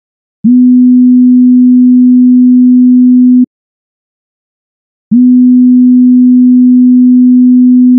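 A pure sine-wave test tone of about 250 Hz, played twice for about three seconds each with a gap of silence between, and a faint click as each tone starts and stops. It is one question in a frequency ear-training test.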